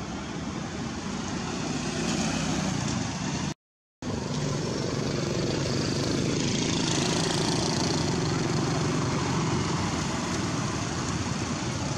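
A motor vehicle engine running steadily, with a low steady hum under a broad outdoor hiss. The sound cuts out completely for a moment about three and a half seconds in, then resumes.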